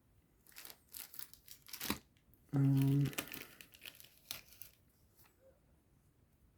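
Crinkling and tearing of trading-card booster pack wrappers being handled, in scattered bursts. About two and a half seconds in, a short hummed voice sound of about half a second is the loudest thing.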